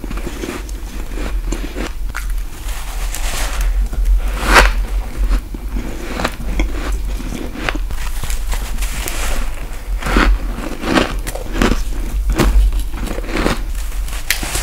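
Close-miked bites into freezer frost ice, each a crisp crunch with crackle. The bites are spaced out at first, with the loudest about four and a half seconds in, then come in a quicker run of five or six from about ten seconds on, over a steady low hum.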